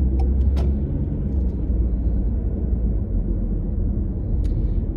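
Steady low rumble of engine and tyres heard inside a moving car's cabin, with a few faint clicks in the first second.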